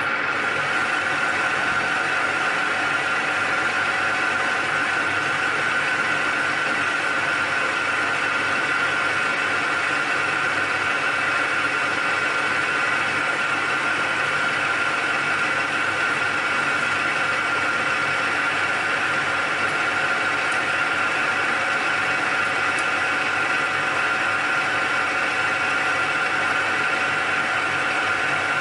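Metal lathe running steadily as a finishing tool bores out the bearing seat of an electric motor bearing housing, taking a 0.75 mm cut. A steady high whine sits over the even machine noise.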